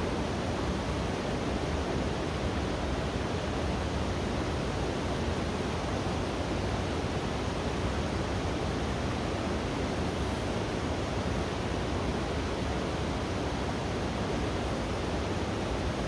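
Steady, even rushing noise that runs without breaks or distinct events.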